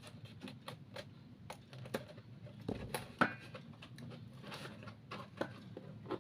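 Hand-handling noises from building a craft model: scattered light taps, clicks and rubbing, with one sharper click about three seconds in.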